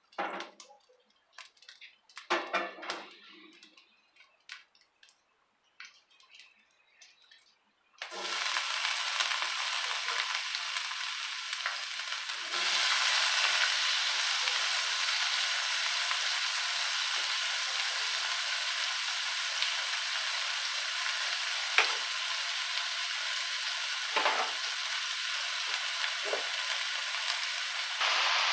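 A few light knocks and clicks of kitchen handling, then about eight seconds in a steady sizzle starts as food fries in hot coconut oil in a pot, getting louder a few seconds later, with an occasional clink of a utensil against the pot.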